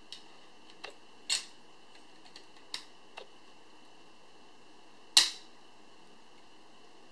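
Scattered clicks and light knocks of a synth module's faceplate being handled and pressed down over the circuit board's knob shafts and jack sockets. There are about half a dozen separate taps, and the sharpest comes about five seconds in.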